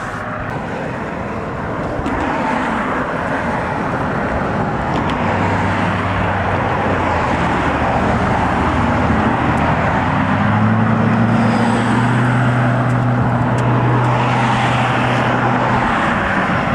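Road traffic passing on a multi-lane highway close by: steady tyre and engine noise, with a low engine drone that comes in about five seconds in and fades near the end.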